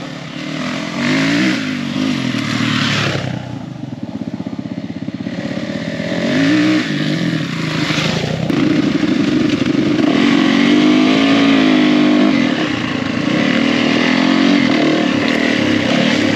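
Four-stroke dirt bike engines revving on a dirt trail: one bike rides up and passes close by, then an engine is heard from on board, its pitch rising and falling with the throttle and gear changes.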